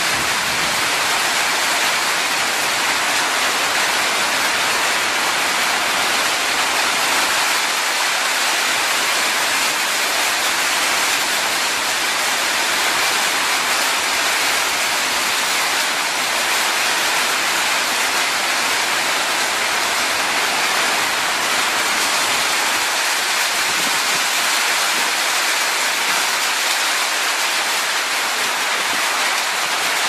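Steady rain, a constant even hiss that never lets up.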